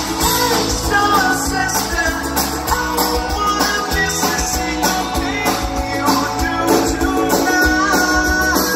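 Live pop-rock band playing through a concert PA, with lead vocals singing over guitar, bass and drums, heard from within the crowd.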